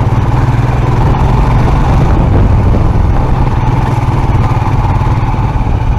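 Motorcycle engine running steadily under way, heard from the bike itself, with a constant low hum.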